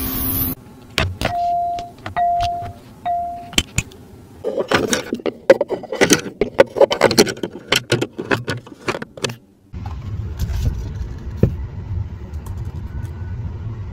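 Three short electronic beeps. Then several seconds of clattering and clicking as objects are handled in a car's centre-console storage tray, followed by a low steady hum with a few faint clicks.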